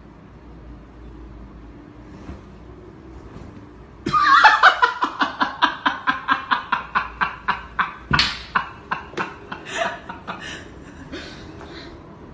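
A person bursts into hard, rapid laughter about four seconds in, a quick run of ha-ha pulses that slowly tails off.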